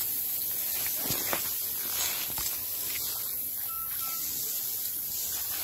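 Rice plants rustling as stalks are pulled up by hand, over a steady hiss, with a few faint snaps.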